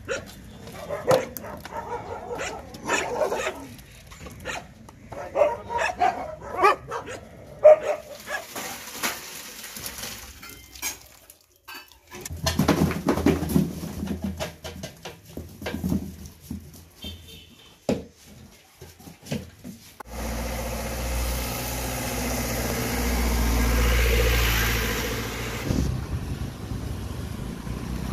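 A pack of street dogs whining, yipping and barking. About twenty seconds in, it changes to the steady rush of wind and engine noise of a motor scooter being ridden.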